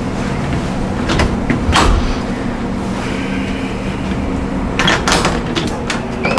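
Steady low hum with scattered clicks and knocks, the densest cluster about five seconds in, as of a door being handled.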